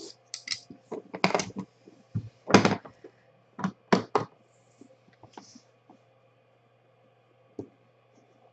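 Handling of a trading-card box and its packaging: a quick run of sharp clicks and knocks for the first four seconds or so, then only a few faint taps.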